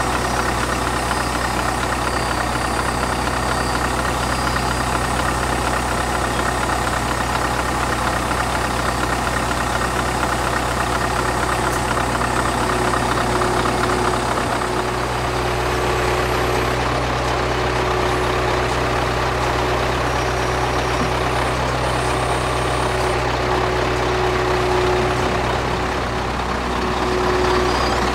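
Scania R500 V8 diesel with straight-up exhaust stacks running steadily at low revs as the truck creeps forward and turns.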